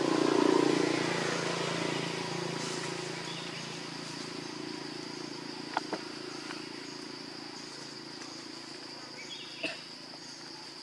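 Insects droning steadily at one high pitch over outdoor background noise, with a low rumble that swells and fades in the first couple of seconds and a few sharp clicks later on.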